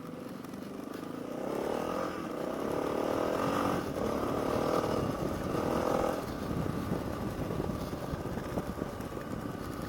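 Yamaha TT600R's single-cylinder engine running under way off-road, pulling harder and louder from about a second and a half in, then easing off after about six seconds, over a rough rumble of wind and terrain.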